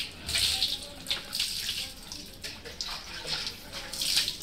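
Water poured from a plastic mug splashing over a dog's wet coat and onto the floor during a bath, in a handful of separate uneven splashes.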